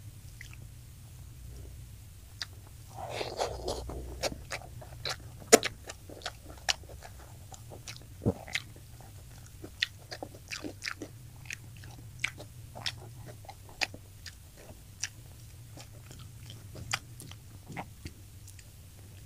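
Close-miked chewing and biting of crispy fried tilapia: irregular sharp crunches and crackles that start about three seconds in. A faint steady low hum runs underneath.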